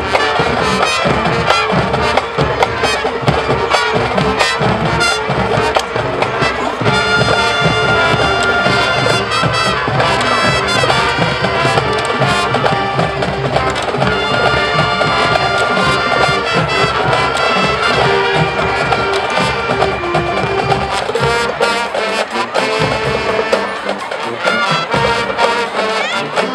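High school marching band playing loud brass with drumline, coming in all at once at full volume right at the start and playing on without a break.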